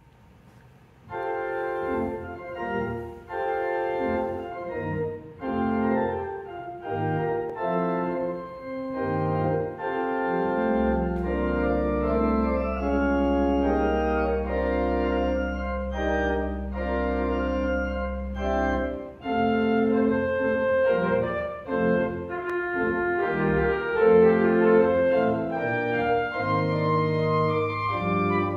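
Pipe organ playing slow sustained chords on the manuals, with the pedals joining in. It starts about a second in, and a long low pedal note is held through the middle.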